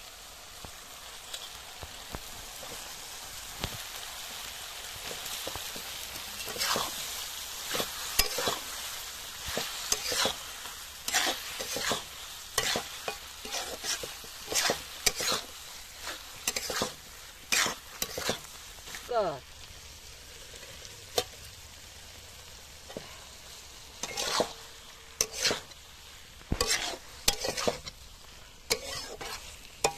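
A long metal spatula stirring potato chunks in a spiced masala frying in an aluminium kadai. A steady sizzle runs throughout, with repeated scraping strokes against the pan; the strokes thin out about two-thirds of the way through, then pick up again near the end.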